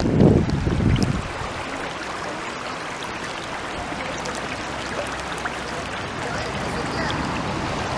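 Spring water and river flowing steadily, an even rushing. Wind buffets the microphone with a loud low rumble for about the first second.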